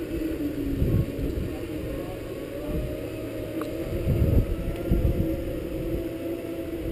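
Segway personal transporter's electric drive whining steadily as it rolls along, its pitch wavering slightly, with gusts of wind buffeting the microphone about a second in and again a little past halfway.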